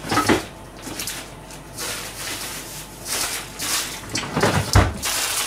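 Knocks and clatter of kitchen work: a few sharp knocks at the start, scattered handling noises, and a heavy thump near the end.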